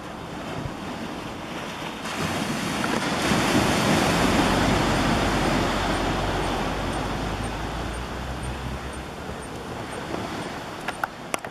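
Small ocean wave breaking and washing up the shore: a hiss that swells for a couple of seconds, then slowly fades. A few sharp clicks near the end.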